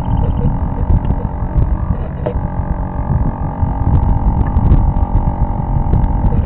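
Wind buffeting the microphone: a loud, gusty low rumble that swells and falls, with a steady hum underneath.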